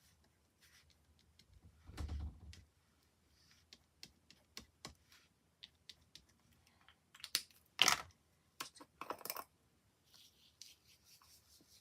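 Scattered small clicks, taps and light scrapes of craft tools and a small glitter tub being handled on a tabletop, with a soft thump about two seconds in and a few louder sharp clicks after the middle.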